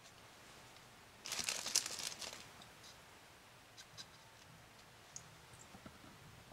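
Brief crinkling and rustling about a second in as lettuce-filled bread sandwiches are handled in a woven wooden bowl, followed by a few faint light taps as small pieces of cheese are set on the bread.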